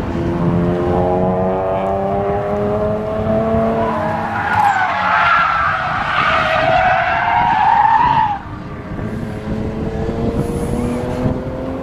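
BMW 335i's turbocharged straight-six engine rising in pitch as the car accelerates. About four seconds in, loud tyre squeal takes over as the car slides through a corner, wavering in pitch for about four seconds before stopping abruptly. The engine then pulls up in pitch again.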